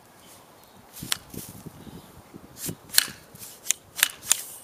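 Fiskars stand-up weeder being worked to clear a pulled weed from its metal claws, with the ejector knocking it off. Several sharp metallic clicks, the loudest about three and four seconds in, over rustling of the weed and soil.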